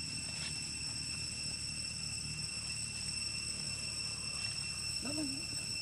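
Steady, unbroken high-pitched insect drone of crickets or similar insects over a low rumble, with a short wavering vocal sound about five seconds in.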